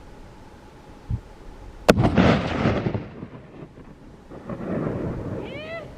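A single hunting rifle shot fired at a chamois about two seconds in: a sharp crack followed by a long rolling echo off the mountainside, with another rumble of echo a couple of seconds later.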